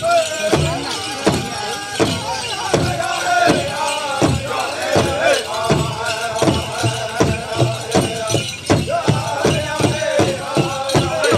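Powwow drum group: several singers chanting in high voices over a large powwow drum struck in a steady beat.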